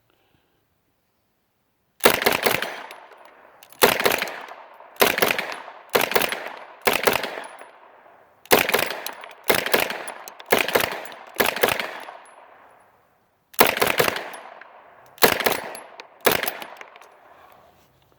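Uzi-type 9mm submachine gun fired shot by shot: about a dozen single gunshots at an irregular pace of roughly one a second, each followed by a ringing echo tail.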